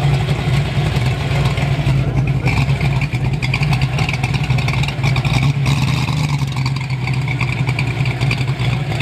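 A car engine running at a steady idle, giving a loud, even low exhaust drone with no revs.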